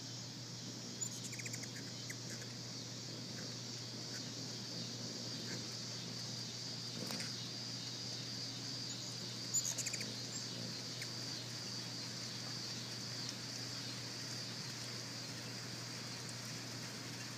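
Steady high-pitched drone of insects. A few short chirps come about a second in, and a sharper tick with more chirps comes about ten seconds in.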